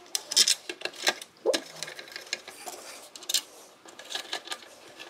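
Hand screwdriver turning small screws through a circuit board into a metal ECU case, with irregular light metallic clicks and ticks as the screws and driver tip catch.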